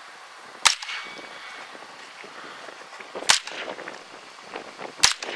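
.22 LR rifle firing three shots, sharp cracks each with a short echo. There are about two and a half seconds between the first and second shots and under two seconds between the second and third.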